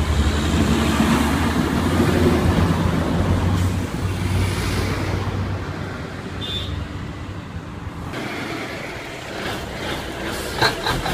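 Diesel engine of a cabover semi-truck tractor running as it pulls past, its low engine note strong for the first few seconds and then fading. A brief high squeal comes about six and a half seconds in, then quieter road noise with a few knocks near the end.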